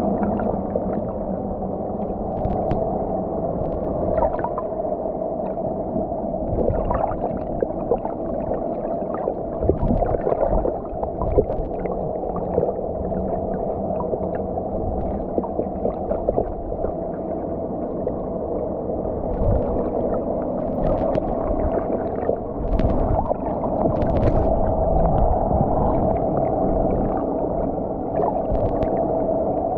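Underwater sound inside a fishing net: a steady droning hum over a low muffled water rumble, with scattered faint clicks and crackles.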